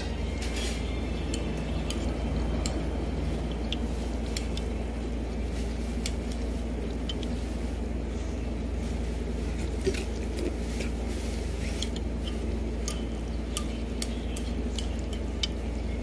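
Dishes and cutlery clinking now and then over a steady low background hum.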